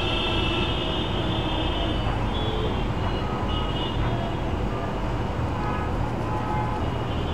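Steady rumble of heavy city road traffic: buses, auto-rickshaws and cars running past. Short high-pitched tones sound a few times in the first half.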